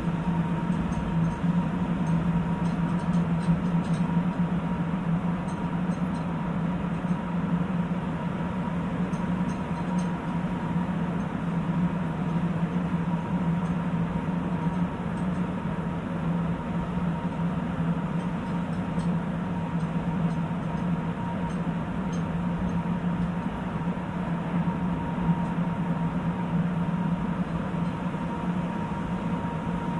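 Steady running noise heard inside a Sapporo Municipal Subway Tozai Line 8000-series rubber-tyred train car travelling through a tunnel. A constant low hum carries a faint steady whine on top, and the level holds even throughout, as the train runs at a steady speed.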